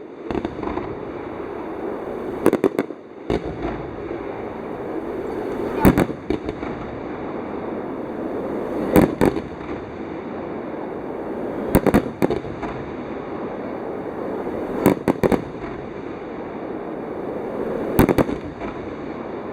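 Fireworks display: aerial shells bursting in sharp bangs about every three seconds, some in quick doubles or triples, over a steady background murmur.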